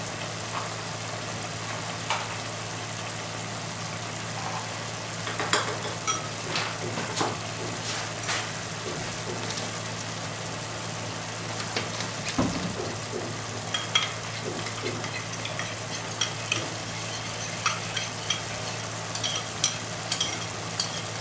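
Minced-pork and vegetable sauce simmering in a wok with a steady sizzling hiss over a low hum. Scattered light clinks of kitchen utensils come more often near the end.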